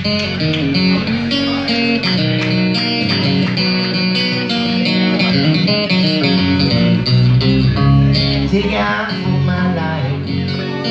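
Live country-rock band playing amplified in a small room: acoustic and electric guitar lines over bass and drums in an instrumental passage, with a man's singing coming in near the end.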